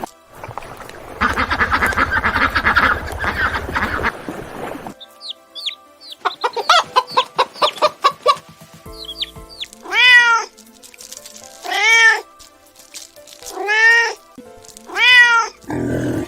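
A cat meowing four times in the second half, each meow about a second long and rising then falling in pitch. Before that come other animal calls: a dense raspy stretch, then short high chirps and a quick run of pulsed calls.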